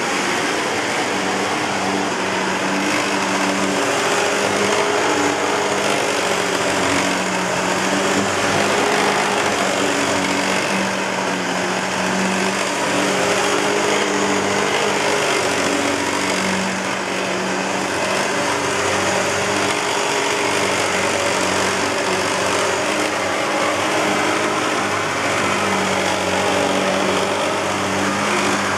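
2007 Hoover WindTunnel self-propelled bagless upright vacuum cleaner running steadily, a constant motor hum and airflow rush. The machine has a bad belt tensioner bearing, which the owner noticed by ear while recording.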